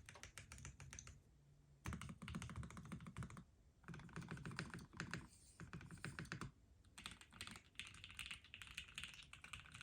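Hoshizora mechanical keyboard with lubed and filmed Gateron Minks linear switches on a POM plate, typed on quickly in several runs of keystrokes with short pauses between them.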